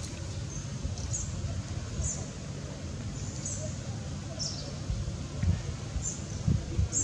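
Short high-pitched animal chirps, about one a second, over a steady low rumble, with a few dull low thumps near the end.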